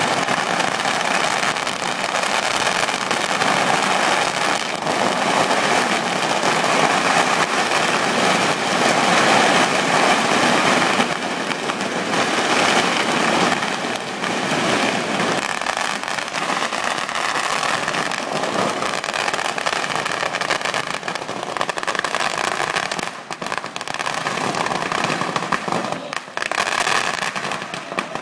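Firecrackers going off in a dense, nonstop barrage of rapid crackling pops. The barrage thins with brief gaps in the last few seconds and cuts off suddenly at the end.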